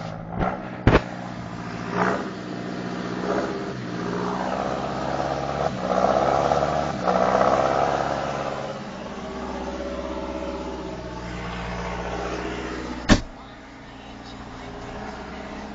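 John Deere 6420 tractor's diesel engine running, revving up and getting louder for a few seconds mid-way, then settling back to a steady run. Two sharp knocks come near the start and a third about 13 seconds in.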